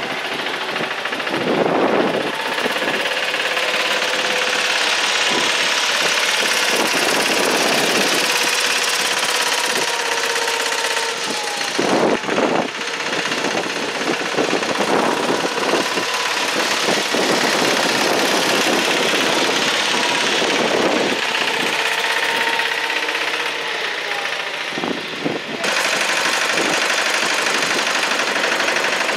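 Site dumper's Deutz diesel engine running, its pitch rising and falling a little, with an abrupt shift in the sound near the end.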